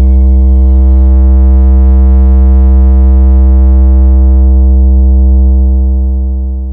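A deep, loud synthesized sub-bass tone held steady for several seconds, the 'vibration bass' test of a DJ sound-check track, fading out near the end.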